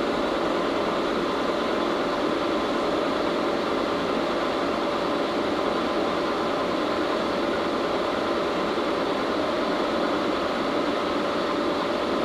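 1952 Bullard Cutmaster vertical turret lathe running under power: a steady machine drone with a constant whine from its drive.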